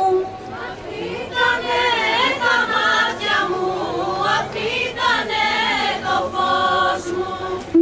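Live Greek folk band of clarinet, violin, laouto lute and percussion playing a kalamatianos dance tune between sung verses, the melody running in wavering, ornamented lines.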